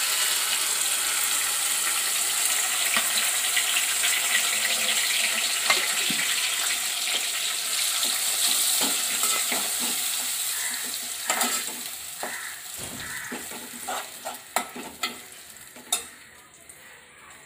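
A wet ground paste of tomato, green chillies, coriander, ginger and garlic hitting hot oil and fried onions in a steel pot and sizzling hard. The sizzle dies down after about eleven seconds, leaving scattered clinks and scrapes of a steel ladle stirring against the pot.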